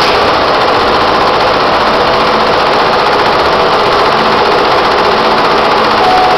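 An SWF multi-needle commercial embroidery machine running, stitching through a vest held in its hoop, with a steady, even machine noise.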